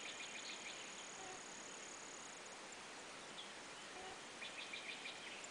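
Faint outdoor evening ambience: a steady high insect trill that stops about two seconds in, with a few short chirps near the start and again near the end.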